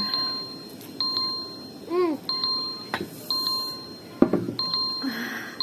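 Countdown timer alarm beeping: a short two-pitch electronic beep about once a second, signalling that the five-minute time is up. A brief vocal sound is heard about two seconds in.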